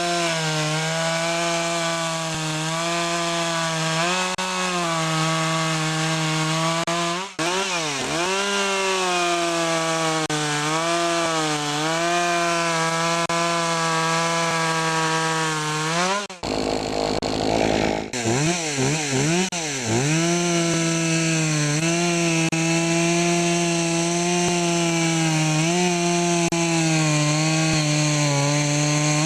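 Poulan Pro PP4620AV two-stroke chainsaw engine running at high revs, dropping back and revving up again several times, with a brief break in the sound a little past halfway. It is running on a freshly replaced air filter, the cure for a clogged filter that had held down its revs and made it run as if the choke were on.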